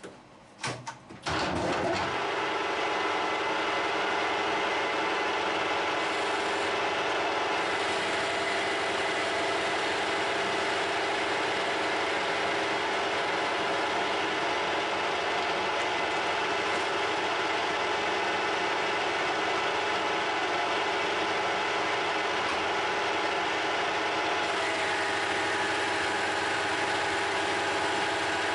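Metal lathe starting after a few clicks and then running steadily, its four-jaw chuck spinning while the tool turns a bright mild steel bar. Near the end a higher whine joins in and falls slightly in pitch.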